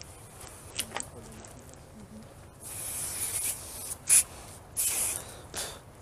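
Aerosol spray can hissing in several squirts: one longer spray about two and a half seconds in, then three short bursts, the sharpest about four seconds in. A couple of small clicks come about a second in.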